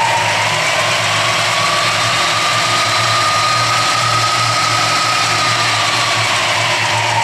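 Clausing horizontal mill's motor and variable-pitch (Reeves) belt drive running, with a steady hum under a whine. The whine rises in pitch over the first second or so as the spindle speed is turned up, holds, then falls back in the last couple of seconds as the speed is brought down.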